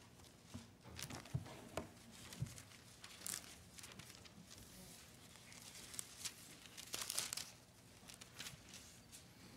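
Thin Bible pages rustling as they are leafed through, in short faint bursts, the loudest a little past three seconds in and around seven seconds in.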